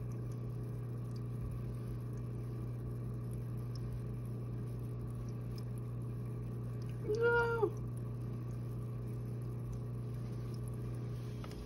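A steady low hum from aquarium equipment, which stops just before the end. About seven seconds in, one short animal call, about half a second long, rises and falls in pitch.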